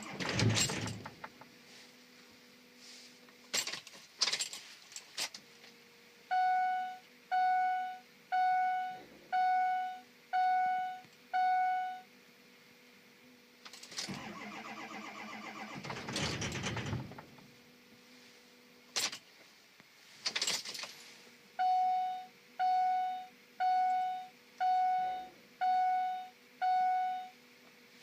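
Dashboard warning chime in a Ford 6.0 diesel pickup's cab, beeping six times at about one a second, then six times again later, as the ignition is switched on before a start. A faint steady hum runs underneath, and keys and handling noises rustle in between.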